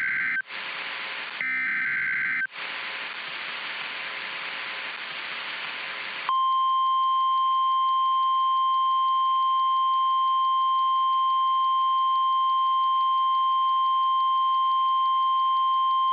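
Simulated NOAA Weather Radio alert over steady radio static. In the first few seconds come two short bursts of SAME header data, then hiss. About six seconds in, the weather radio's 1050 Hz warning alarm tone starts and holds as one steady high tone for about ten seconds.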